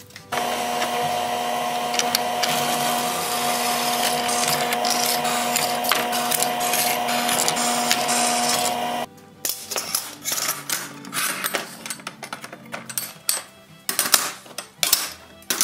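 Drill press running and drilling through a flat metal strap: a steady motor whine with a grinding hiss that cuts off abruptly about nine seconds in. Then scattered clanks and knocks as the metal strap is handled on the bench.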